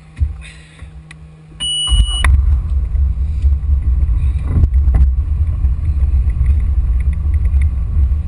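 A brief high electronic beep, then the boat's motor comes up into a loud, steady low rumble as the boat gets under way, about two seconds in.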